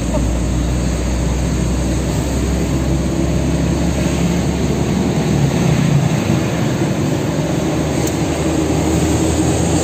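Engine and road noise of a Mitsubishi Canter light truck heard from inside its cab while driving, a steady low drone that swells slightly about five to six seconds in.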